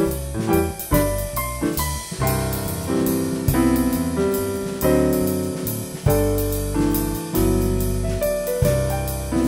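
Background piano music, a steady stream of separate notes over low bass notes.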